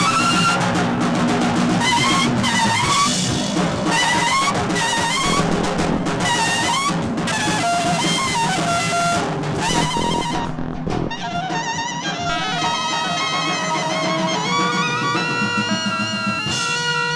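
Free-improvised ensemble music: a horn plays sliding, bending phrases over busy drums and percussion. After about eleven seconds the drums drop away and several steady sustained tones are held together.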